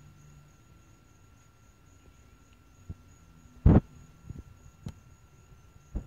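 Faint steady electrical hum, broken about three and a half seconds in by one loud thump and a few softer taps: handling noise from the camera held over the nest.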